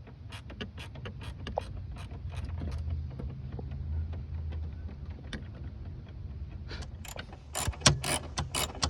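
Ratchet wrench clicking as bolts are loosened, in runs of quick clicks that get much louder near the end, over a low steady hum.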